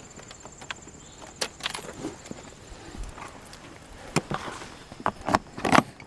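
Footsteps on asphalt, irregular steps and scuffs, with a cluster of louder knocks and bumps near the end.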